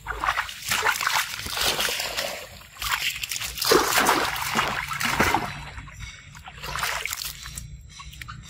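Macaques splashing as they wade and leap through shallow pool water, in rushing bursts of splashing. The loudest burst comes about four seconds in, and a weaker one follows near the end.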